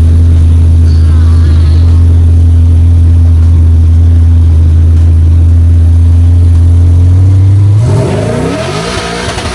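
Drag-race car engine held at a loud, steady rev, then rising in pitch about eight seconds in as it pulls away and the sound drops off.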